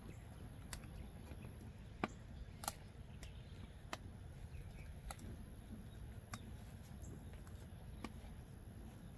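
Wood fire burning in a smoker's open firebox, giving scattered sharp crackles and pops, about seven in all and loudest around two and three seconds in, over a faint low rumble.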